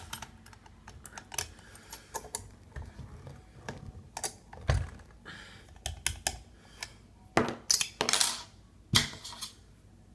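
Irregular small metallic clicks and taps from a Ruko lock and its key or picking tools being handled, with a few louder knocks.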